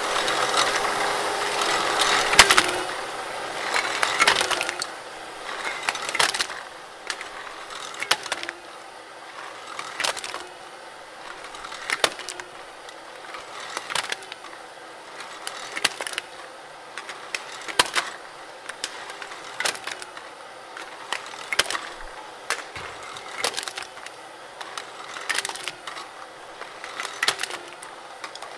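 Homemade motor-driven can crusher, with a crank rod and piston ram, crushing aluminium drink cans one after another. A sharp metallic crunch comes about every two seconds over the steady hum of the machine, and the hum dips at each stroke.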